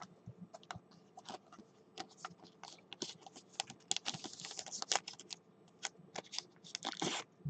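Irregular small clicks and crinkling of plastic as a trading card is handled in its plastic card holder and sleeve, busiest in the middle and again near the end.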